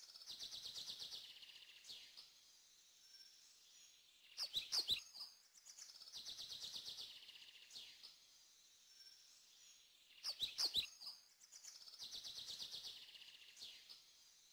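Bird song repeating in the same pattern about every six seconds: a quick cluster of sharp high chirps followed by a buzzy trill lasting about two seconds, the repeats identical like a looped recording.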